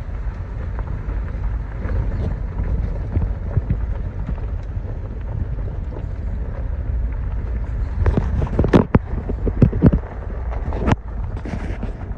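A vehicle driving over a rough back road: a steady low engine and road rumble, with a run of sharp knocks and rattles from bumps about eight to eleven seconds in.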